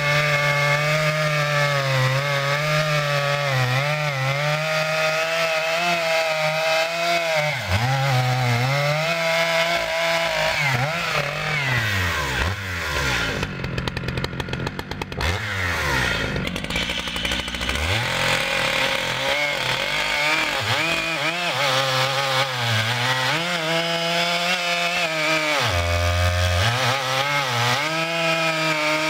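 Stihl MS 881 Magnum chainsaw, a 121.6 cc two-stroke, running at high revs while cutting through big logs during its break-in; the engine note wavers as the chain loads up in the wood. About halfway through the revs fall away and rise again.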